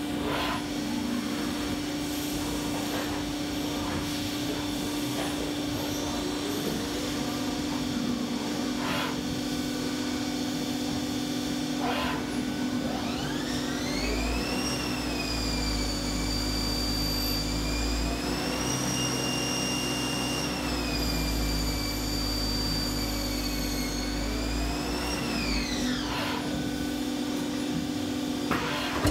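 Haas ST10Y CNC lathe cutting an aluminum nut: a steady machine hum with a few short scrapes of the tool on the part. About halfway through, a high whine rises, holds for about ten seconds over a deep rumble with a small step up in the middle, and then falls away.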